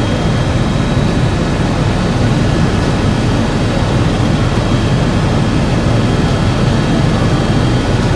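Steady, loud cabin noise of a Bell 407 helicopter in flight, heard from inside the cockpit: the turbine engine and rotors run without change, with a few faint steady high-pitched tones over the low noise.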